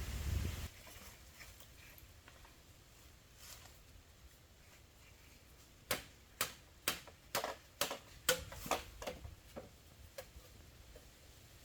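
A brief low rumble at the start, then a run of about eight sharp knocks or cracks, roughly three a second, each dying away quickly.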